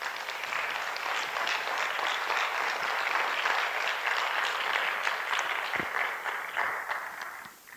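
Audience applauding, a dense patter of many hands clapping that holds steady and dies away near the end.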